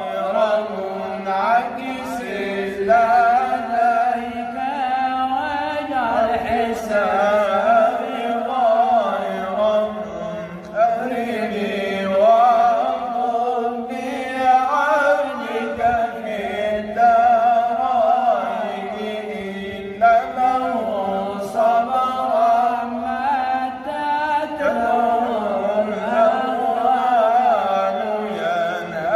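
A man chanting an Islamic devotional poem in a long, melismatic style, his pitch winding through ornamented phrases with short pauses for breath.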